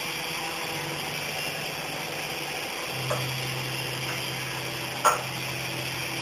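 Micro RC helicopter's small electric motors and rotors whirring steadily in a low hover, the hum dropping slightly in pitch about three seconds in. It is flying on a nearly flat battery. Two short clicks, about three and five seconds in.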